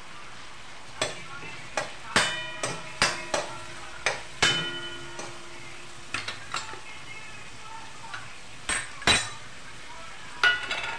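Metal ladle scraping and knocking against a metal kadhai as tomatoes and curry leaves are stirred in hot oil, in irregular strikes with a short metallic ring, the loudest about nine seconds in. A faint steady sizzle lies under it.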